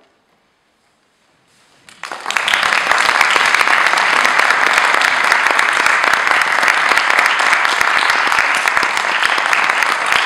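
Audience applause that starts about two seconds in, after a brief hush at the end of a piano piece, and carries on steadily.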